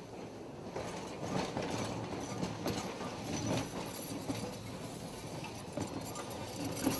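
Tram running along street rails, its wheels clacking in irregular knocks over the rail joints and points.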